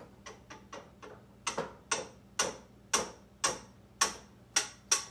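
Metal kitchen utensil tapping against a cooking pot of thick porridge, about two sharp taps a second, faint at first and louder from about a second and a half in.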